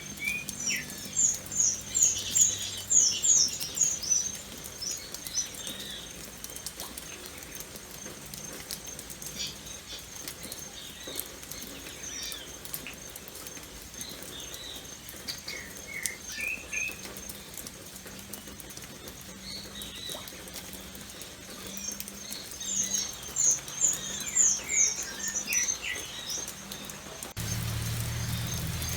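Birds chirping in bursts of quick, high, falling notes, over a light patter of raindrops. A low hum comes in near the end.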